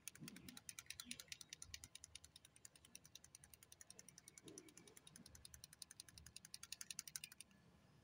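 Small touch-up paint bottle being shaken, its mixing ball rattling inside as a fast, even run of faint clicks, roughly eight to ten a second, that stops about a second before the end.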